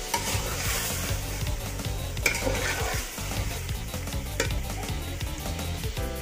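Chicken curry sizzling in a metal pot while a long steel ladle stirs it, with two sharp clinks of the ladle against the pot, about two seconds in and again about four and a half seconds in.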